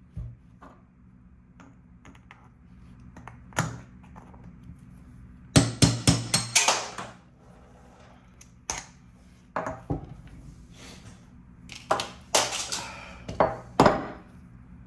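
Metal tools knocking and clinking on the scooter's wheel hub. There are single strikes at first, a run of about five quick knocks around six seconds in, and another cluster near the end, each ringing briefly.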